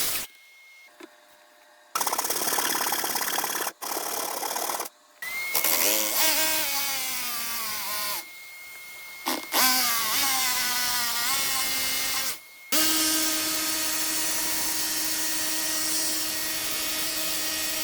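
Electric power saw cutting notches and angled cuts out of a worktop panel, in several short stretches: the motor whine drops in pitch as the blade bites and picks up again, then runs steadily near the end.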